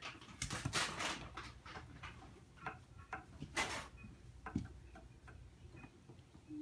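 Italian greyhound shifting on a linoleum floor, its nails and wagging tail making scattered light clicks and taps, with a stronger tap about three and a half seconds in.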